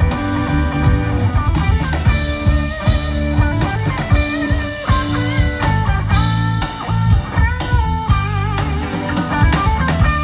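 A live rock band playing an instrumental passage: electric guitars play melodic lead lines over a drum kit and a heavy low end.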